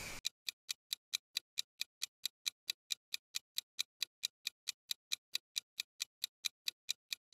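Steady, even ticking like a clock or kitchen timer, about four and a half sharp ticks a second with dead silence between them: an added ticking sound effect marking time passing.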